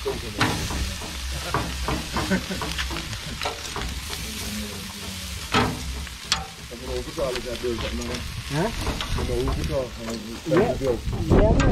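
Chicken sizzling on a grill over hot coals, with metal tongs clicking and scraping against the wire grate as the pieces are turned.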